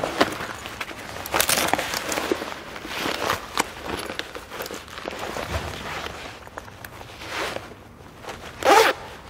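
Fabric-covered stab vest rustling and knocking as it is pulled on over the head and shrugged into place, in irregular bursts of handling noise, with one louder short sound near the end as the front is worked.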